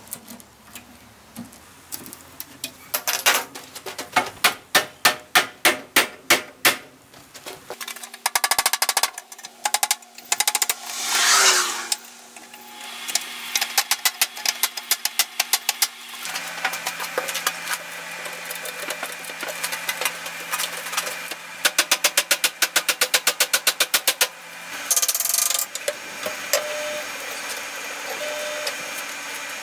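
Hammer blows striking the end of a 1.5-inch PVC pipe to drive it down inside a flagpole shaft and reinforce it. The blows come about two a second at first, then in faster runs, with a brief falling squeal partway through.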